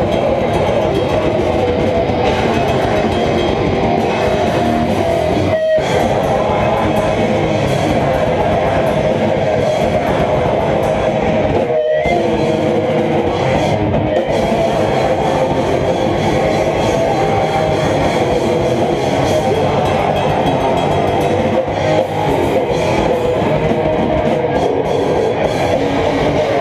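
Grindcore band playing live and loud, with distorted electric guitar and drums. The whole band stops dead for an instant twice, about six and twelve seconds in.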